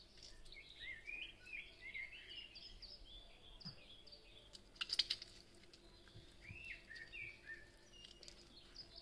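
Small birds chirping and twittering in many short, quick calls, with a brief cluster of sharp clicks about five seconds in.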